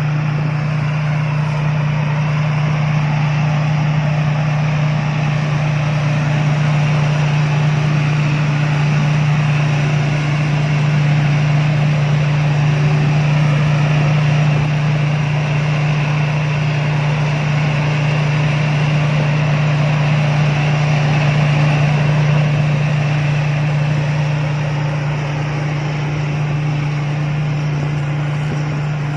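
Rice combine harvester's diesel engine and machinery running steadily at a constant speed, with a strong low hum and no change in pitch.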